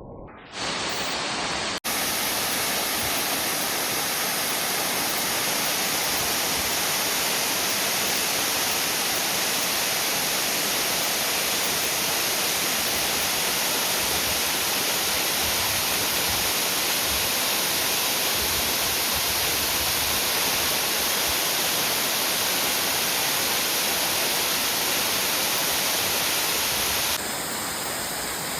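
Waterfall's steady, loud rushing of falling water. It starts about half a second in, breaks off briefly near two seconds, and changes slightly in character near the end.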